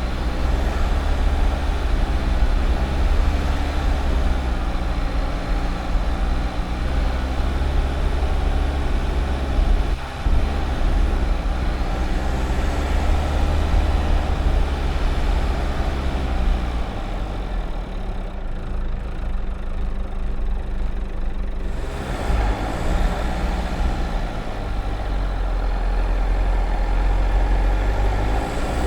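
Dacia Duster's 1.5 dCi turbodiesel engine running with a steady low rumble as the car is driven off-road. The sound turns duller for a few seconds, then changes abruptly about three quarters of the way through.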